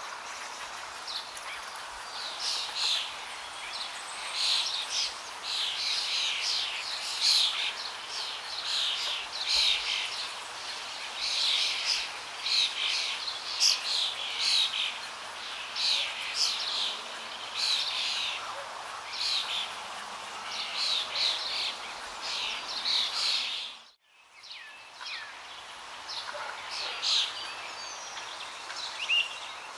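Small birds chirping and twittering in quick, irregular runs over a steady faint hiss. The sound cuts out briefly about three-quarters of the way through, then resumes.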